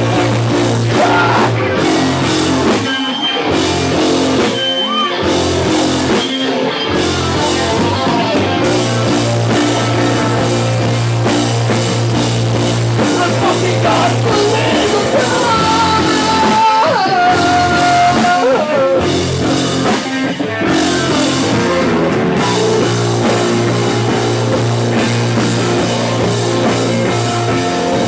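Live rock band playing loud, with electric guitars, bass guitar and drum kit.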